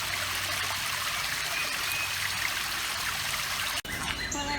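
Creek water flowing and trickling in a steady, even rush that cuts off abruptly near the end.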